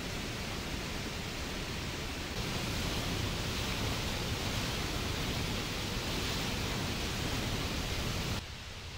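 Steady rushing of a waterfall and rapids running high with brown floodwater. The rush steps up a little louder about two seconds in and drops abruptly to a quieter rush just before the end.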